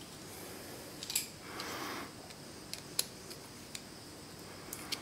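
Small metallic clicks and scraping from a snap ring (circlip) being pressed and levered with a small screwdriver into its groove on a Shimano Nexus 8 hub's sprocket carrier. A few sharp clicks spread through it, with a short scrape about a second and a half in.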